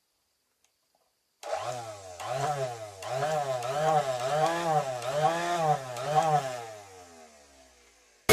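A homemade table saw's motor spinning an abrasive stone cutting disc fitted in place of a saw blade. It starts suddenly about a second and a half in, its pitch swinging up and down about twice a second, and dies away near the end.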